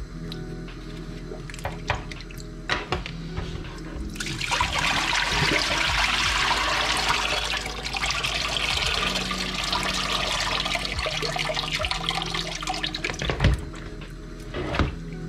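A few knife knocks as a potato is cut into a plastic bowl. About four seconds in, water splashes into a kitchen sink for several seconds as the cloudy, starchy rinse water is poured off the cut potatoes. A single knock comes near the end.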